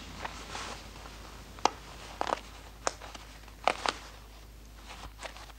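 Small handling sounds of clothing: soft rustling broken by several short, sharp clicks and taps, as a waistcoat and tailcoat are handled and unbuttoned.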